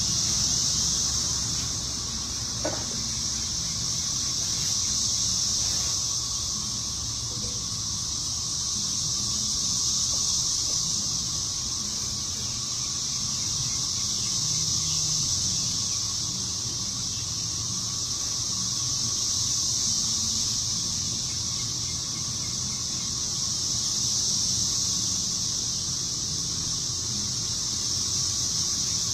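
Outdoor insect chorus: a steady high-pitched shrill that swells and fades every few seconds, over a low rumble of wind on the microphone.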